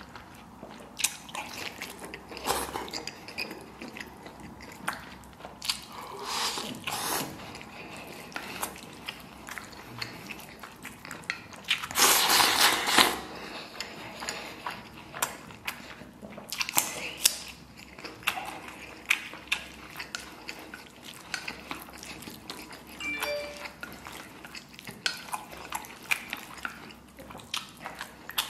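A man eating braised pork belly with rice and vermicelli: close, wet chewing and slurping, with chopsticks clicking against a stainless steel bowl. A louder stretch lasting about a second comes about twelve seconds in.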